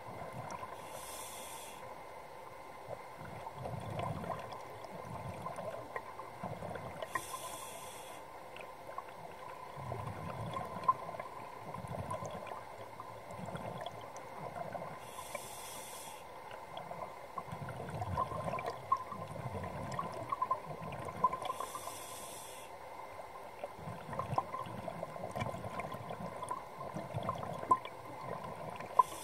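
Scuba diver breathing through a regulator, heard underwater: a short hissing inhale about every six to seven seconds, with low bubbling exhalations between them. A faint steady whine runs underneath.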